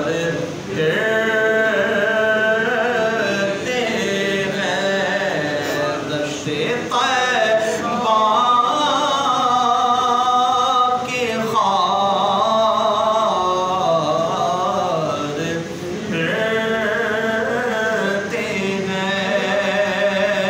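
A solo man singing an Urdu naat unaccompanied, in a slow melody with long held notes and short breaks between phrases.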